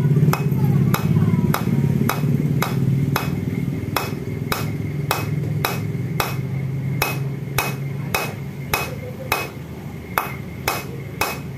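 Ball-peen hammer tapping an 8 mm bolt used as a drift, driving a new valve guide into a Yamaha Mio J cylinder head: light, even metal taps about two to three a second. A low drone underneath fades away over the stretch.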